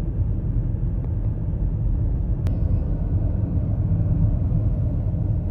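A car driving along, a steady low rumble of engine and road noise.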